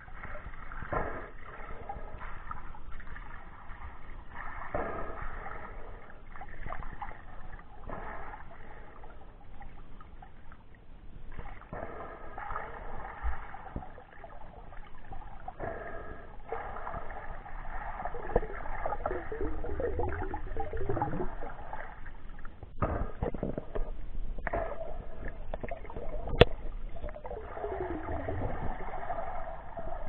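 Muffled water noise from an action camera held underwater by a snorkelling swimmer: sloshing and gurgling water that rises and falls with the movement, and one sharp knock late on.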